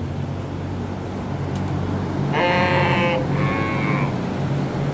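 A sheep bleats twice in quick succession, about two and a half seconds in, over the steady hum of barn ventilation fans.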